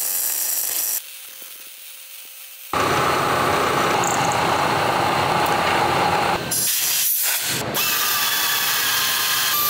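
Metal-shop machining sounds in quick cuts. A brief hiss of a welding arc comes first, then a quieter stretch. About three seconds in, a milling machine's end mill cuts metal loudly for several seconds. Near the end a machine spindle runs with a steady whine.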